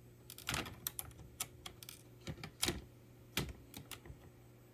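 Irregular sharp plastic clicks and taps from the dishwasher's control panel and button assembly being handled and pressed, about a dozen spread unevenly, like keyboard typing.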